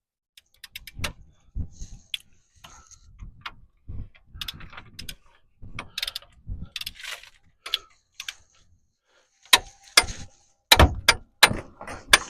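Hand tools clicking and knocking on metal while brake caliper bolts are torqued down to 55 foot-pounds: scattered sharp clicks, with a run of louder ones near the end.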